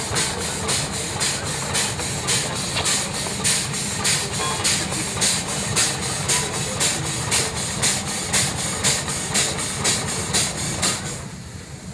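Steam road roller's steam engine running, its exhaust giving a regular hissing chuff about two to three beats a second over a low rumble. The beats stop near the end.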